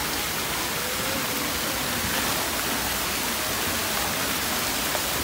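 Steady rush and splatter of water from the spray jets and fountains of a children's splash pool.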